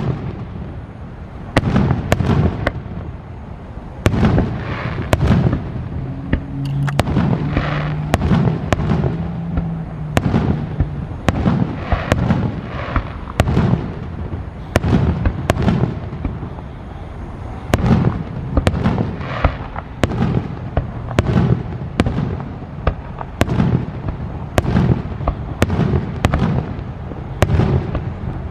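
Fireworks display: aerial shells bursting in a dense barrage of sharp bangs, often several a second, each trailing off in a low rumble.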